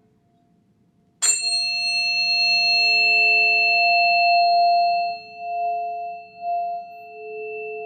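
Sound-healing tuning forks struck once about a second in, then ringing on as two steady tones with faint high overtones, wavering in loudness and slowly fading.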